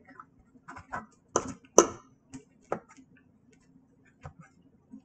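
A metal fork clicking and tapping against a blue enamel plate as a pancake is cut and eaten, about half a dozen irregular sharp clicks, the loudest just under two seconds in.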